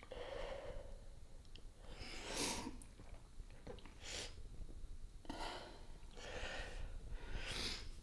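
A woman crying: about five heavy, shaky breaths, gasps and sniffs, one after another.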